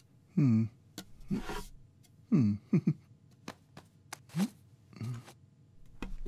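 A man's short grunts and strained murmurs of effort, five or so, each sliding down in pitch, the loudest about half a second and two and a half seconds in. Small sharp clicks and taps of handling fall in between.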